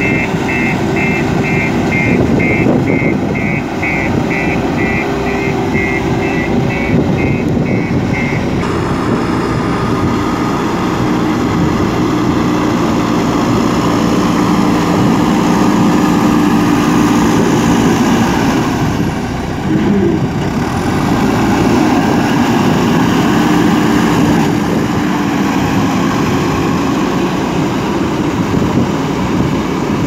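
A JCB single-drum road roller's diesel engine running, with its back-up alarm beeping rapidly. About eight seconds in this gives way to a JCB 3DX backhoe loader's diesel engine running steadily as it works.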